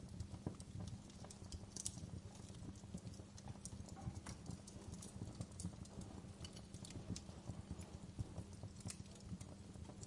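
Wood fire crackling in a fireplace: many small irregular pops and snaps over a steady low rumble of the burning fire.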